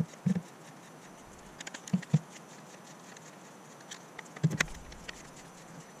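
A few scattered light clicks and knocks of a hand screwdriver and the plastic window switch panel being handled while its three mounting screws are taken out.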